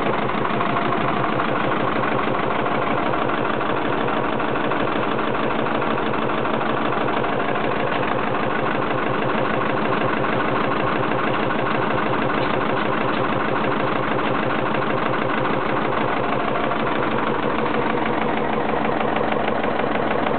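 Vendeuvre Type 9 stationary engine running steadily with an even, rapid beat.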